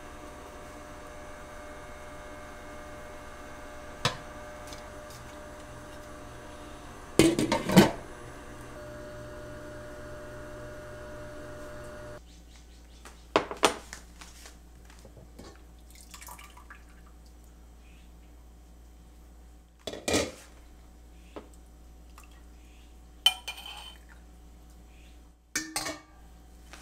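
Kitchen dishes, pans and utensils clinking and clattering in separate bursts, the loudest a short cluster about seven seconds in. A steady hum sits underneath and drops away abruptly about halfway through.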